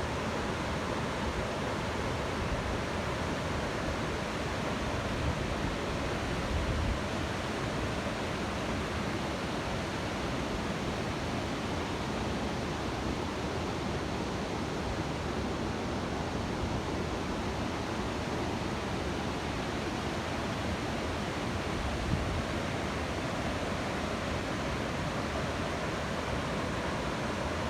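Waterfall pouring steadily: an even, unbroken rush of falling water, with a couple of brief low bumps about seven seconds in and again near the end.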